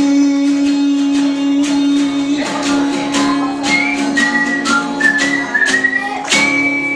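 Acoustic guitar strummed through a song, with a man's sung note held for about two and a half seconds at the start. From about four seconds in, a high melody line steps up and down over the guitar.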